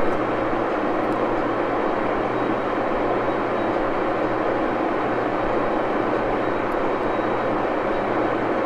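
Steady drone of a machine shop lathe running unloaded, with a constant low motor hum: a Baby Axelson engine lathe left running in reverse to warm up to operating temperature.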